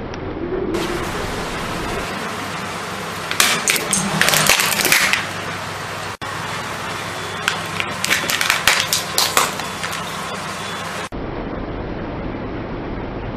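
A car running steadily, with two spells of crackling and crunching, about three seconds in and again about seven seconds in, from plastic being crushed under a car tyre.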